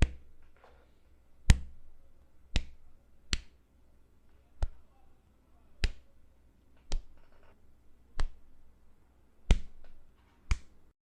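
Cinematic punch sound effects: about ten single sharp hits, one every second or so, with short gaps between them.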